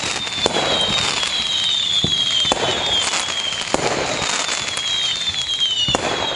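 Fireworks sound effect: a steady crackle of bursting fireworks with several sharp bangs and high whistles that slide slightly down in pitch, over and over.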